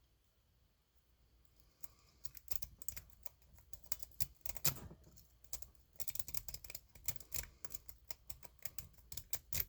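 A lock-pick rake scrubbed in and out of a brass Wilson Bohannan padlock, the pins clicking against it in rapid, irregular bursts that start about two seconds in.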